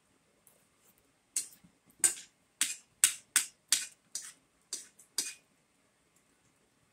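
A metal spoon and fork clicking against a dinner plate as rice is scooped: about nine short, sharp clinks. They start about a second and a half in and stop a little after five seconds.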